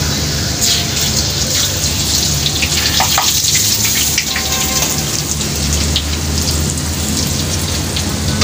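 Puri paratha of maida dough deep-frying in hot oil in a wok, a steady sizzle with scattered crackles.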